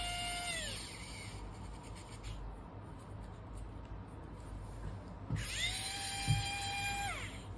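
Small electric precision screwdriver whirring twice, a short run at the start and a longer run of about two seconds near the end, each dropping in pitch as it stops, while driving M2 screws into a plastic servo bracket. A couple of light knocks come during the second run.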